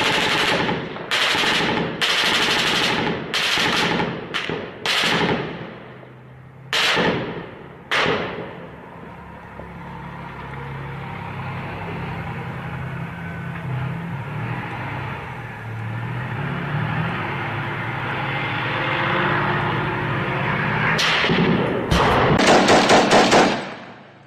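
Gunfire in a street battle: a series of loud shots or blasts in the first eight seconds, each ringing off for about a second. A steady low rumble follows, then a rapid burst of automatic fire near the end.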